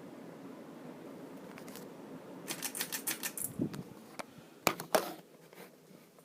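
Nutone NuBreeze ceiling fan running with a steady low hum. Midway comes a quick run of rattling clicks, then two sharp clicks near the end, after which the sound drops much quieter.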